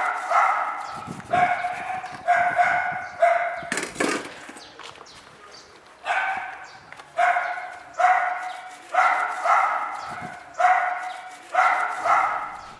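A dog barking over and over, about one bark a second, each bark dying away quickly. There is a pause of a couple of seconds near the middle.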